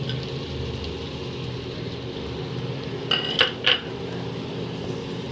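A metal spoon clinking sharply against a cooking pan three times in quick succession, a little after three seconds in, over steady sizzling of the chicken and vegetables frying in the pan.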